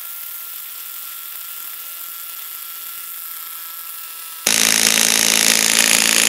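Makita DTW300 cordless impact wrench hammering against a nut under heavy torque load: a steady, fainter hum at first, then about four and a half seconds in a loud, dense hammering cuts in.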